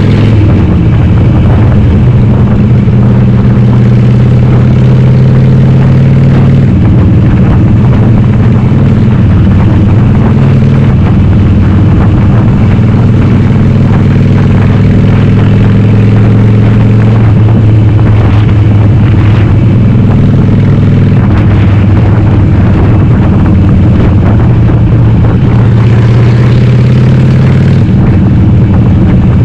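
Harley-Davidson Sportster 883R's air-cooled V-twin, converted to 1200, running through Cobra Speedster 909 pipes with the dB killers removed: a loud, deep exhaust note under way. Its pitch steps up and down several times with throttle and gear changes.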